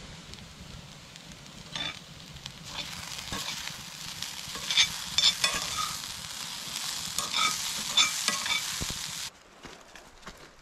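Chopped onions sizzling in a cast-iron skillet, with a spatula scraping and clinking against the pan several times as they are stirred. The sizzle cuts off suddenly near the end.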